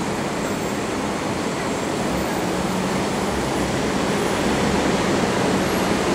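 SMRT C151 metro train pulling into the station, a steady rumble of wheels and running gear that grows gradually louder as it approaches.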